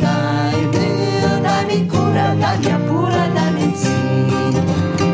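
Music: a Santo Daime hymn played on acoustic guitar, with singing.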